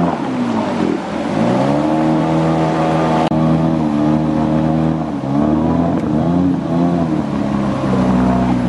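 Small engine running hard, its pitch dipping and climbing again several times as the throttle is eased off and opened up.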